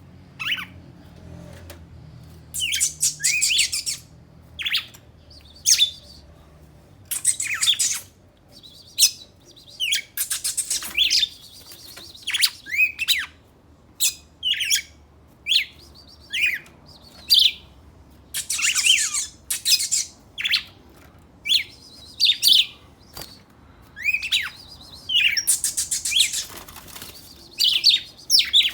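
Two songbirds singing against each other in a song duel: loud short phrases of sweeping whistles and buzzy high trills, one after another about every second.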